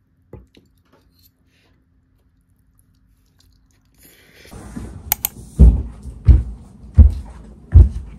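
A few faint clicks of a spoon against a dish, then, about halfway through, a background hiss comes up with two sharp clicks and a run of four heavy footsteps, one roughly every three quarters of a second.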